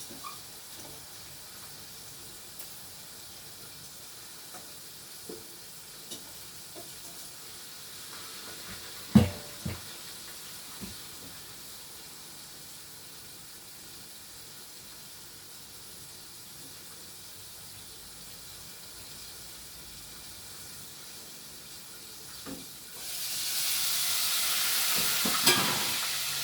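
Faint steady sizzling with scattered light kitchen knocks and one sharp knock about nine seconds in; about three seconds before the end, loud sizzling of chicken frying in oil starts suddenly.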